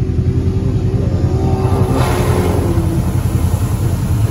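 ATV engine running under throttle as it ploughs through a muddy water hole, with a low rumble throughout. The engine note rises about two seconds in, together with a rush of splashing water and mud spray.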